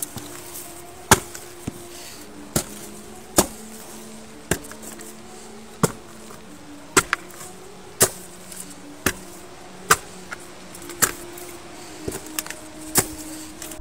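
Footsteps climbing leaf-strewn concrete stairs, a sharp step about once a second, over a faint low sustained musical drone.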